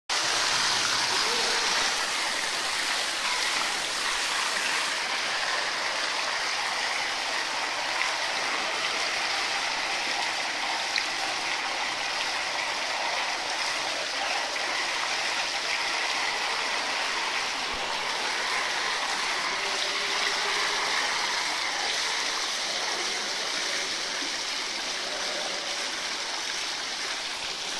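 Water pouring steadily from a pool waterfall into the pool, a continuous rushing splash.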